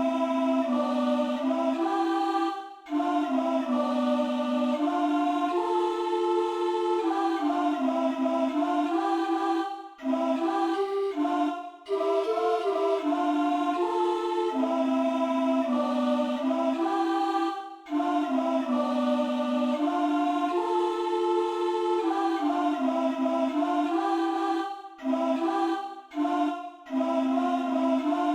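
A self-composed wordless vocal melody, sung in a slow, chant-like line that steps up and down in phrases with short breaks between them.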